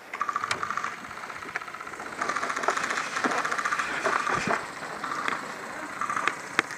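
Airsoft electric gun firing full-auto in long bursts: a fast, even mechanical rattle that lets up briefly past the middle and starts again near the end, with a few sharp cracks mixed in.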